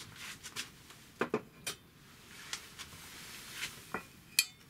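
Light clinks and taps of metal carpenter's squares being handled on a cloth-covered table, as a small metal square is laid against the inside corner of an old bronze sashigane to check it for square. A few scattered taps, with the sharpest clink near the end.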